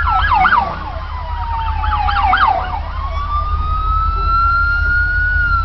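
Police car sirens: a slow wail that falls and then rises again, overlapped twice by a rapid yelping siren, over a steady low rumble of road or wind noise.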